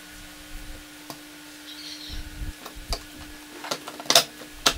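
Light knocks and clicks of a wooden board being handled and set down onto an aluminium extrusion with bolts standing up from it. The two loudest knocks come near the end, with a low thud a little before the middle, over a faint steady hum.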